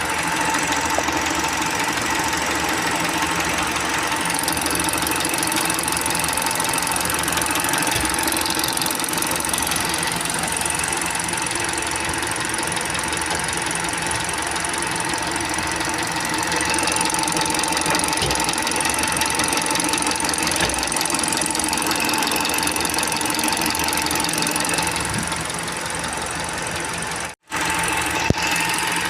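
Car engine idling with a fast, even ticking from the valve train: tappet (lifter) noise. The running breaks off for a moment near the end and resumes.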